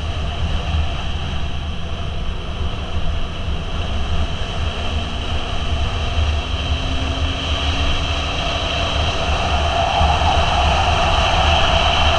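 A motorcycle riding on the open road: the engine runs under heavy wind rumble on the bike-mounted camera's microphone. The engine's pitch climbs slowly around the middle as it picks up speed, and the noise grows a little louder near the end.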